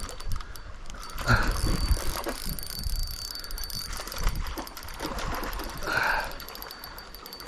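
Fishing reel being cranked to retrieve line, a ticking mechanical whir, with a faint steady high-pitched tone running through.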